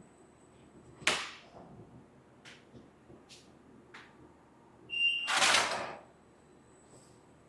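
Automatic screen printing press running a print cycle: a sharp clack, a few light clicks, then a short beep followed by a loud swish about a second long.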